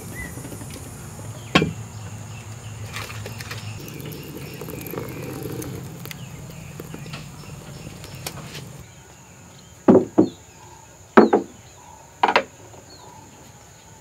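Five sharp knocks of wooden kitchenware, a wooden mortar and pestle and bowl, on a wooden table, coming as two quick pairs and a single near the end. A steady high insect drone runs underneath, with a low steady rumble during the first two-thirds.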